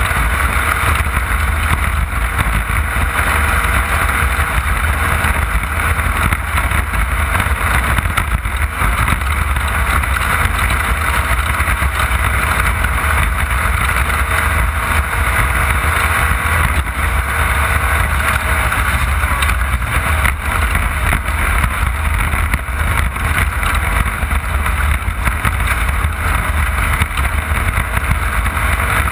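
Off-road race car's engine running steadily at speed, with a constant low rumble and rushing noise over the onboard microphone.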